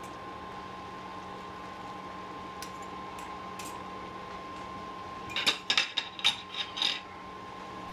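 A metal utensil knocking and scraping against a cooking pan while food is mixed in it: a quick run of about six clinks near the end, over a steady hum.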